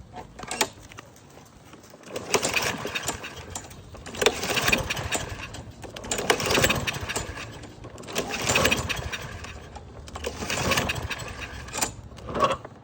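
Lawn Boy push mower's small engine repeatedly bursting into life and dying away, about six times at roughly two-second intervals, never settling into steady running. The owner takes the trouble for an air leak that needs new gaskets.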